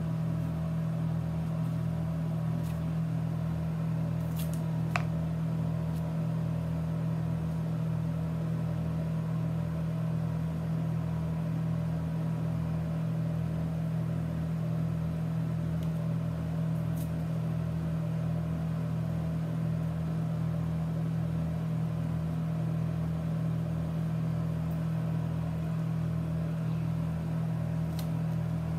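A steady low machine hum with a faint regular pulsing beneath it, plus a few light clicks.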